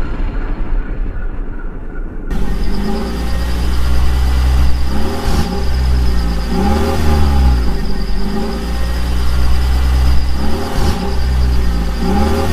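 Heavy vehicle engine sound revving up and down in a repeating cycle, cutting in suddenly about two seconds in after a low rumble.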